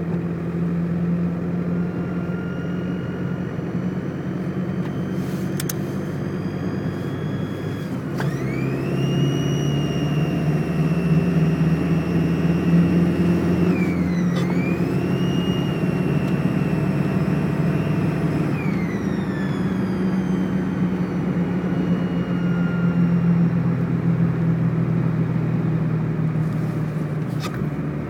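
1998 VW Jetta 1.9 TDI turbodiesel engine running, with a high whistle that rises sharply about a third of the way in, dips and climbs again midway, then falls away. This whistle is the unexplained noise, which the owner suspects may be an exhaust leak, a boost leak or a failing turbo.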